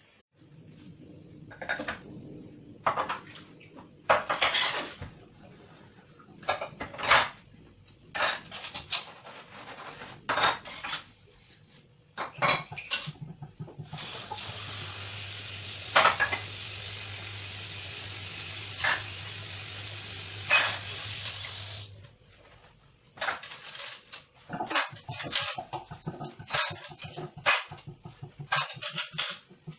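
Dishes and cutlery clinking and clattering as they are washed by hand in a kitchen sink. About halfway through, the tap runs for roughly eight seconds, with clinks of dishes under the running water, then the clatter goes on after it is turned off.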